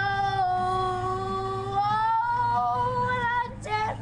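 A young girl singing unaccompanied. She holds one long note, moves up to a higher note about halfway, and breaks off with a quick vocal swoop near the end.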